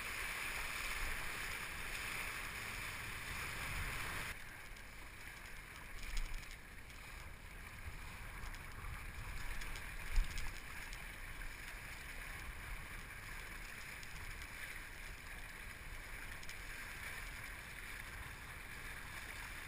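Water rushing past a windsurf board sailing over a choppy lake, with wind buffeting the rig-mounted camera's microphone; the hiss turns duller about four seconds in, and a couple of low thumps come through as the board hits chop.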